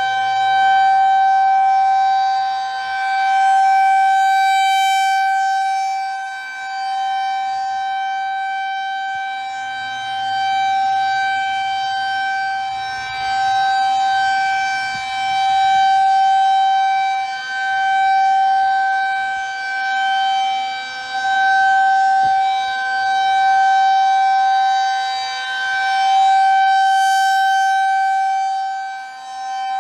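Federal Signal 2001 electromechanical tornado siren sounding a steady single tone in its monthly test, loud, swelling and fading about every four seconds as the siren head rotates.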